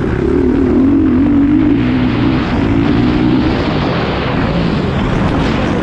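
Motocross dirt bike engine running hard at racing speed; its pitch wavers up and down with the throttle for the first few seconds, then the sound turns rougher with no clear note over the second half.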